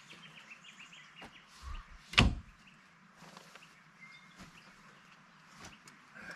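A single sharp knock about two seconds in, with a softer thud just before it, from around the open side door of a Toyota LandCruiser Troopcarrier. Birds chirp faintly throughout.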